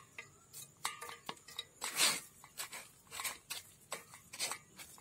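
Wooden spoon scraping and pressing wet ground herb paste against the mesh of a plastic strainer over a steel bowl, straining out the juice. The scrapes and light knocks come irregularly, about two a second, the loudest about two seconds in.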